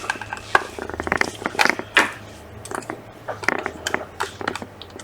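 Irregular small clicks and scrapes of a tool and fingers on a MacBook Pro's logic board, disconnecting the battery connector.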